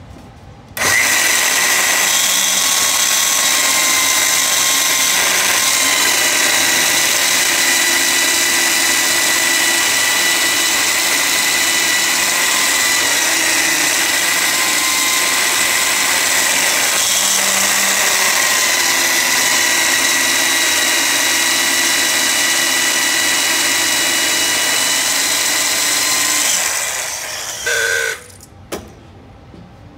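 Handheld electric belt sander switched on about a second in and running steadily, with a steady whine, as it sands a wooden board. It is switched off near the end and winds down, followed by a short burst and a click.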